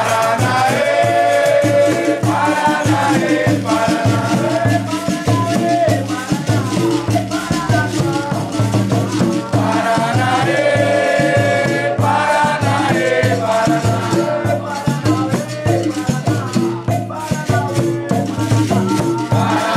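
Capoeira roda music: berimbaus with caxixi rattles, pandeiro and atabaque playing a steady rhythm, with group call-and-response singing over it.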